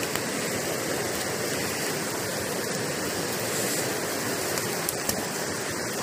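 Steady rushing hiss of rain falling together with a river running over rocks close by. A couple of faint ticks come about five seconds in.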